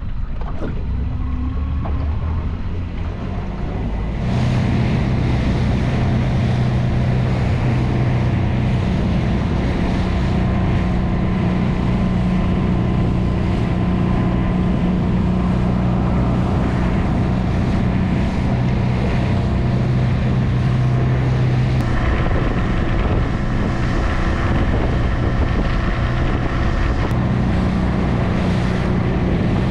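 Small boat's outboard motor running steadily under way, with wind buffeting the microphone and water noise. The engine note steps up and gets louder about four seconds in.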